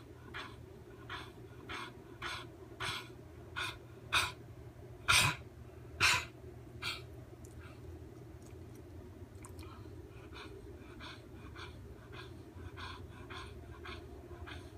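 Rhythmic coughing, roughly one to two coughs a second, building to three loud coughs near the middle and then tapering into fainter, quicker ones.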